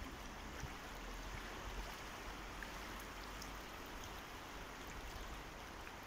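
Fast river current flowing past the bank, a steady rush of water.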